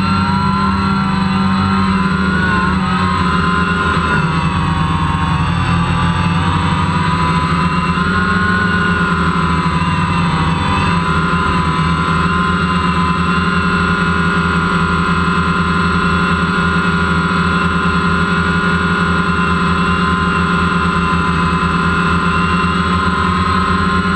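DJI Phantom quadcopter's electric motors and propellers whirring steadily, heard close up from the camera mounted on the drone. Their pitch wavers up and down through the first half as the drone adjusts, then holds steady.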